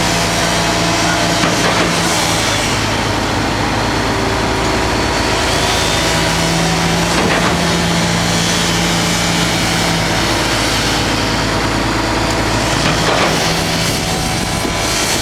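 Construction machinery engine running steadily, with a humming tone that comes and goes, and a few sharp knocks about 1.5, 7 and 13 seconds in.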